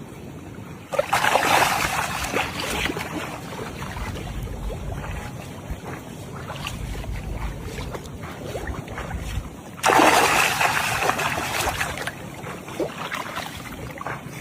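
Two sudden bursts of splashing water, about nine seconds apart, each fading over a couple of seconds, over a steady low rumble.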